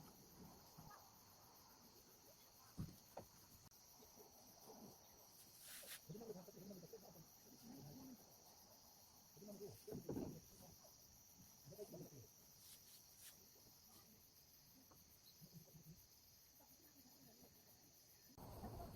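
Faint, steady high-pitched insect chirring, likely crickets, with soft scattered rustles and knocks close by.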